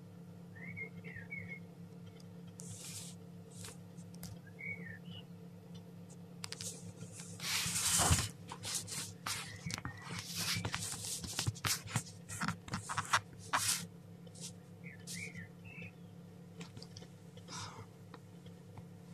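Newly hatched chicken chick peeping faintly a few times, over a steady low hum. In the middle comes several seconds of crackling and rustling clicks, loudest about eight seconds in.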